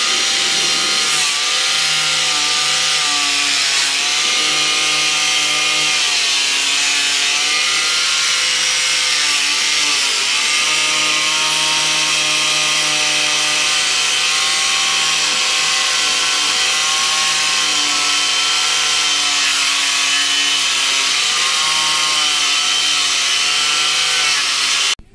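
Angle grinder with a wire brush running continuously, scouring flaking paint and rust off a steel lawnmower deck. Its motor whine dips in pitch several times as the brush is pressed into the metal, and it stops just before the end.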